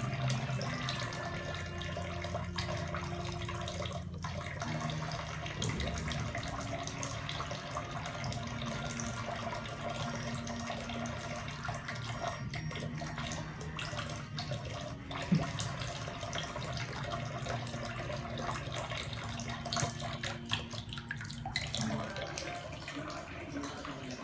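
Kitchen tap running a thin, steady stream of water into a stainless steel sink, with a single sharp click about halfway through.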